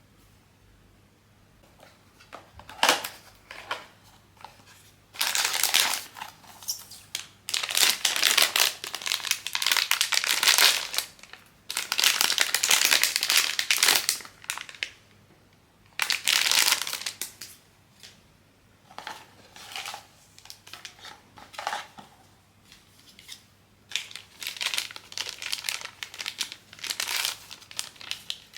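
Crinkly plastic packaging of a blind-box toy being handled and opened, in irregular bursts of crinkling with short pauses between them.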